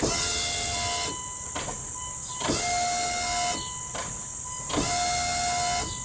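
Dodge Ram 2500's electric in-tank fuel pump running with the key on, a whirring whine in three runs of about a second each. It is priming and working, which rules it out as the cause of the no-start.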